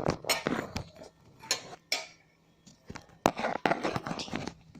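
Knocks, taps and small clinks of objects being handled and set down on a table close to the microphone, in an irregular run with short scrapes between them.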